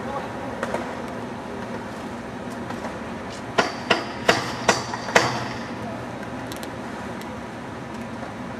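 Skateboard clattering on concrete after a bail: five sharp clacks in quick succession, about a third of a second apart, a little past the middle, the last one the loudest, over a steady background hum.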